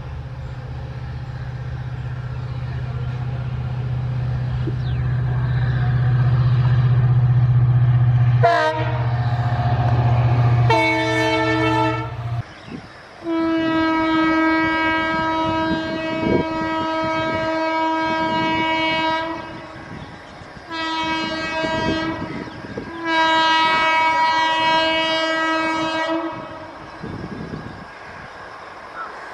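WDP-4 diesel locomotive's EMD two-stroke engine running and growing louder as it approaches, sounding its horn twice, briefly and then longer. After a cut, an approaching WAP-4 electric locomotive sounds its horn three times: one long blast, a short one, then another long one.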